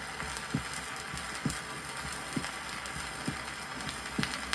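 Normal human heart sounds heard by auscultation over the pulmonary artery: a steady lub-dub, two low tones per beat with the second tone the stronger, about one beat every 0.9 seconds. It plays under the hiss and crackle of an old 33 rpm vinyl record.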